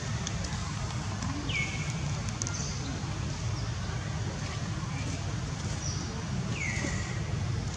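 Outdoor ambience: a steady low rumble, with a short high call that slides down in pitch and then holds, heard twice.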